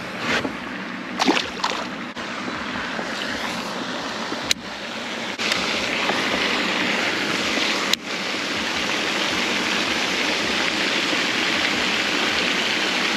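Steady rush of splashing water that grows a little louder about five seconds in, with two sharp clicks, one near the middle and one a few seconds later.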